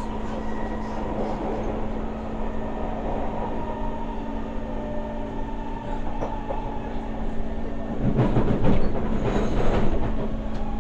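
Interior of a Kawasaki-built SMRT C151 metro car under way, with a steady hum and wheel-on-rail noise. About eight seconds in, the running noise swells for a couple of seconds into a louder rumbling rattle.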